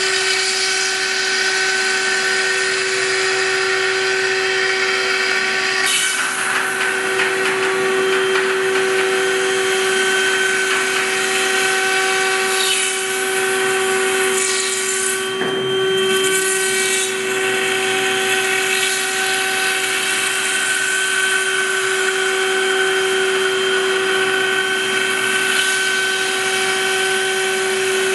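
Five-axis CNC milling machine's spindle whining at a steady pitch over the hiss of the cutter milling. The cutting noise thickens about six seconds in, and the whine dips briefly about halfway through.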